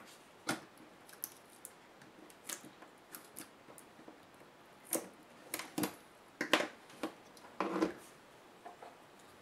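Irregular small clicks, taps and scrapes of a hand tool prying a small circuit board out of a laptop's plastic and metal display back cover. The clicks come louder and closer together in the second half.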